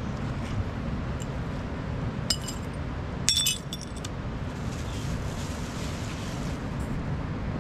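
Short clinks, a light one about two seconds in and a louder cluster of ringing clinks a second later, over a steady low rumble.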